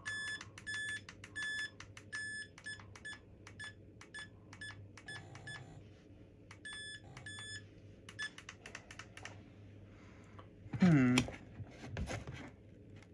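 Short electronic beeps at one pitch, repeated in quick groups, from the freshly powered RC plane's electronics, with small clicks between them. Near the end comes a brief, louder sound that falls steeply in pitch.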